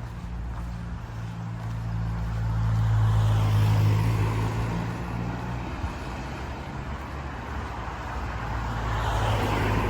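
Road traffic: cars passing close by, one swelling up and fading around four seconds in and another near the end, over a steady low engine hum.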